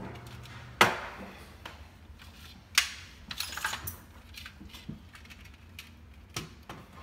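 Sharp clicks and light knocks from an LED under-cabinet light fixture's housing being handled and pressed up against the cabinet underside while its wires are fed through. The loudest click comes about a second in, and there is a short rattle a little before the middle.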